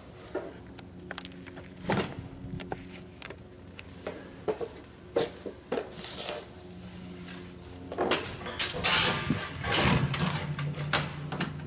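Scattered clicks, knocks and rustles of objects being handled on a workbench, over a faint steady hum, with a longer stretch of rustling about eight to ten seconds in.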